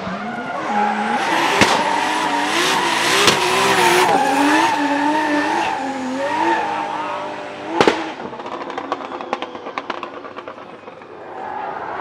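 Drift-built BMW coupe's engine revving up and down with the throttle through a slide, with tyre squeal. A sharp bang comes about eight seconds in, then a run of quick crackles as the car pulls away and the sound fades.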